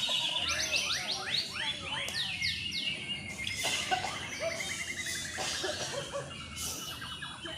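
Several caged white-rumped shamas singing at once: rapid runs of falling whistled notes, then a fast, even trill in the middle.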